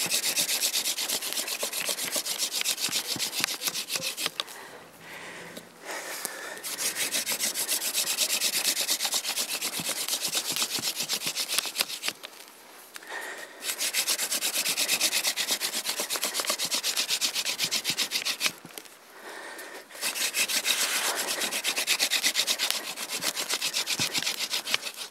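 Hand-drill friction fire: a yucca-stem spindle spun back and forth between the palms, rasping fast and steadily into an eastern white cedar hearth board. It comes in four bouts with three short pauses, grinding out a coal.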